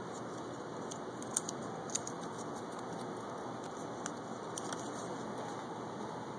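Folded paper slips being handled and unfolded: a few crisp paper crinkles and clicks over a steady background hiss.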